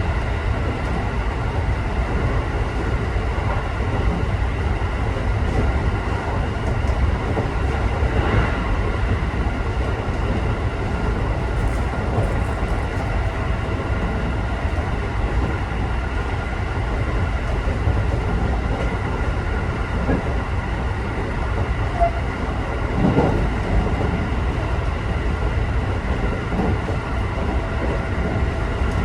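A JR local electric train running, heard from inside the carriage: a steady rumble of wheels on the rails with a few faint steady tones above it.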